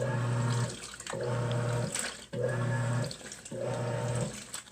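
Portable washing machine running its wash cycle: the motor hums in short runs with brief pauses about every second, as the washer reverses direction, with water sloshing in the tub.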